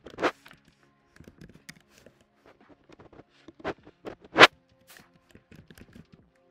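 Typing on a computer keyboard: irregular key clicks with a few louder knocks, the loudest just over four seconds in. Faint background music plays underneath.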